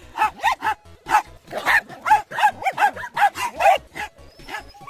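Small dogs barking and yapping excitedly at play: short barks about three a second, at differing pitches and sometimes overlapping.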